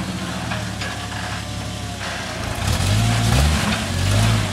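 Jeep engine running steady and low, then revved harder in two surges over the second half, as it works the Jeep over rock.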